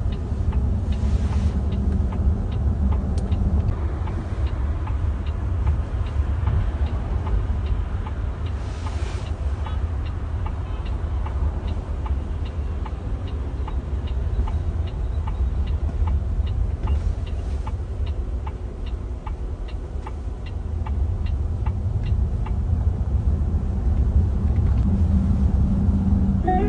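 Road and tyre rumble inside the cabin of a moving car, with a light regular ticking about twice a second through most of it.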